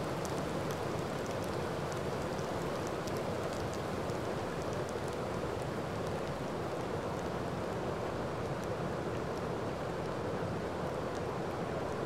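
Waterfall cascading over rocks into a pool: a steady rush of falling water, with faint light ticks of splashing scattered over it.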